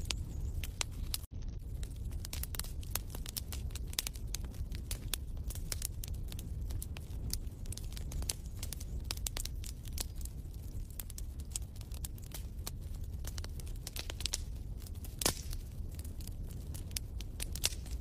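Wood fire crackling in a fireplace: irregular sharp pops and snaps over a low steady rumble, with a brief dropout about a second in.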